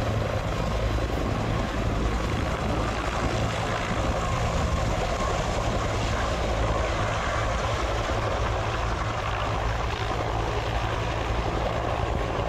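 Bell UH-1D Huey helicopter, its turboshaft engine and two-blade main rotor running steadily as it hovers and flies low just above the ground.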